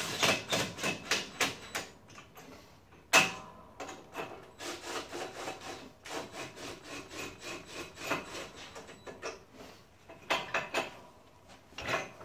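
Metal tool and bracket handling on a snow plow mount: quick runs of clicks at about seven a second, a single sharp knock about three seconds in, then a stretch of rasping and scraping of metal parts, with more clicks near the end.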